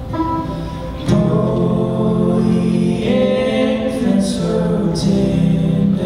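Male voices singing a slow, held melody over a strummed acoustic guitar and a picked five-string banjo.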